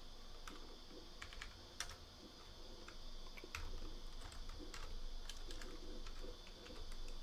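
Quiet typing on a computer keyboard: irregular, scattered keystrokes.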